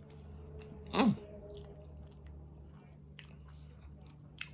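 A person chewing a mouthful of baked sweet potato stuffed with jerk chicken with closed lips, with faint wet mouth clicks and a short falling 'mm' about a second in. A low steady hum runs underneath.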